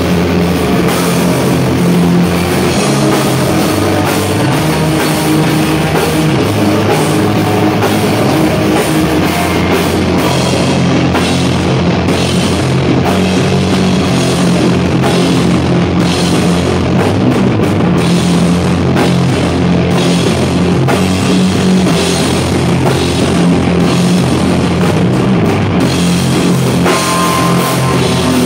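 Live sludge metal band playing loud and heavy: distorted electric guitar and bass over a pounding drum kit with crashing cymbals.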